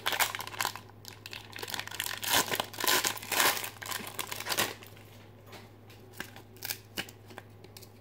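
Foil trading-card pack being torn open and crinkled by hand, a dense crackling rustle for the first four and a half seconds, then only a few faint clicks and rustles as the cards are handled.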